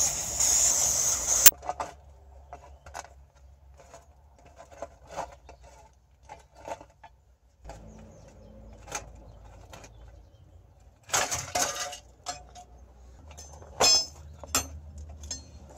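Aerosol can hissing as it sprays the rusty hub bolts of a steel rear suspension knuckle, cutting off abruptly after about a second and a half. Then scattered clinks and knocks of a wrench on the knuckle as the four hub-to-knuckle bolts are undone, with a sharp ringing metallic clank near the end.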